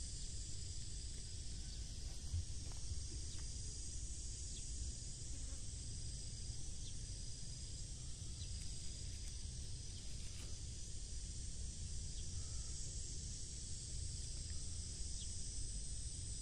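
Outdoor ambience of insects chirring steadily in a high band, over a low rumble on the microphone, with a few faint ticks.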